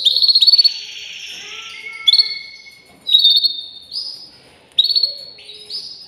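Canary singing: several short phrases of fast rolled trills of repeated notes, each starting abruptly and fading off.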